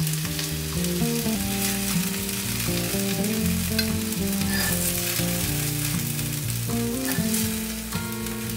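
Chicken thigh pieces and oil sizzling on a hot cast-iron griddle pan: a steady frying hiss. Soft background music plays underneath.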